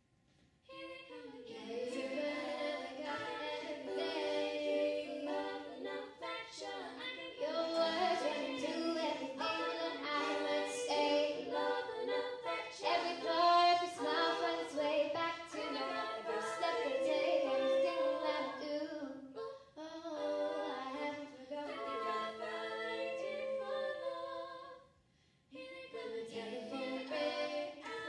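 Young female voices singing a slow song in harmony, accompanied by a school string ensemble. The music dips briefly about 20 seconds in and stops for about half a second near 25 seconds.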